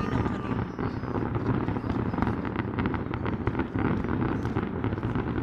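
Fireworks going off in a dense, continuous string of rapid crackles and pops over a low rumble.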